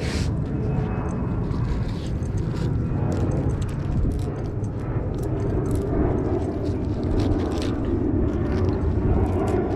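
Wind rumbling steadily on the microphone, with scattered light clicks and scrapes from a cast net and its metal weights being handled close by.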